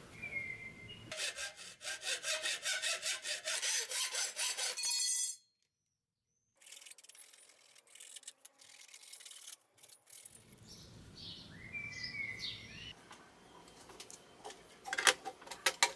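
Hand saw cutting through a steel DIN rail clamped in a bench vise, in quick back-and-forth strokes for about four seconds, then it stops. Faint bird chirps follow.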